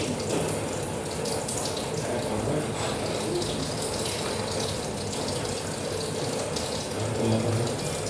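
Steady rain falling, an even rushing hiss with scattered drop patter.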